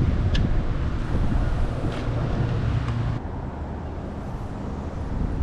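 Wind buffeting the microphone: a low rumble that eases about three seconds in, with a couple of faint clicks.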